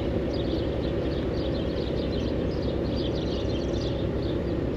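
Heavy diesel engine running steadily with a low, even rumble, while small birds chirp throughout.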